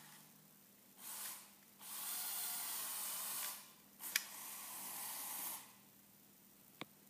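The two Lego Power Functions large motors of a small Lego Technic remote-controlled car whirring in three bursts of about one to one and a half seconds as the car is driven. There is a sharp click about four seconds in and another near the end.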